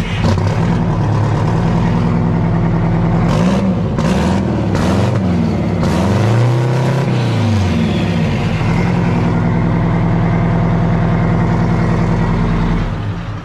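Detroit Diesel engine running through a freshly built, open side-exit exhaust pipe on its first start through it. It idles loudly, is revved up and down a few times with the biggest rev about six seconds in, and drops away near the end; it sounds very fire truckish.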